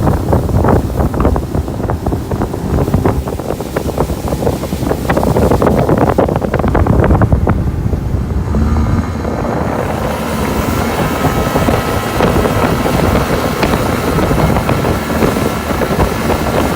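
A boat running across the water, its motor heard under heavy wind buffeting the microphone. The buffeting is strongest in the first half, and the motor's steady hum comes through more clearly about halfway in.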